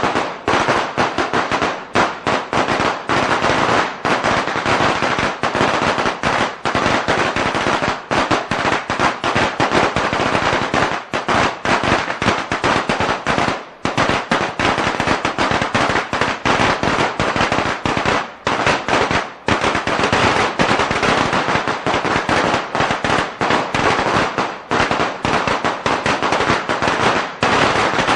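A string of firecrackers going off in a continuous rapid crackle of sharp bangs, with only brief gaps in the barrage.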